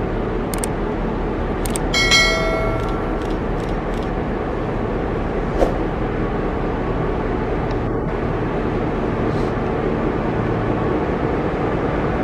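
Victorian Railways X-class diesel-electric locomotive running at low speed as it draws into a platform: a steady engine drone and rumble, a few sharp clicks, and a brief metallic ring about two seconds in.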